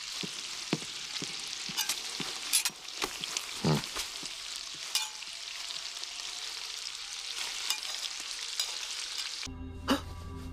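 A steady crackling hiss with scattered sharp clicks and a low falling blip about three and a half seconds in. Near the end it cuts off abruptly into soft ambient music with held tones.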